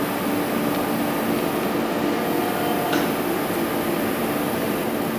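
Scharmann CNC horizontal floor borer running, with its column traversing along the bed: a steady machine hum with a low drone. There is a single light click about three seconds in.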